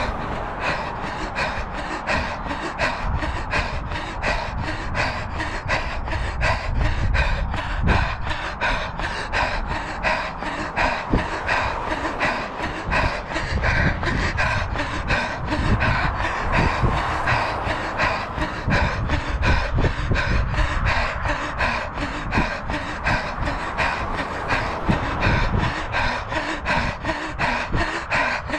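A runner's hard, rhythmic panting during a fast tempo run, with footfalls on the asphalt path at about three steps a second.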